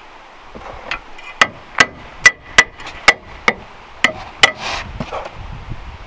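Hammer striking steel suspension parts while fitting a lower control arm: about eight sharp, ringing metal-on-metal blows roughly half a second apart, then a short scraping swish.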